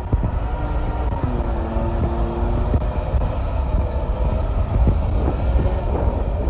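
Volvo L90H wheel loader's diesel engine running as the machine moves, a steady heavy rumble, with a few held tones from the machine for about a second and a half near the start.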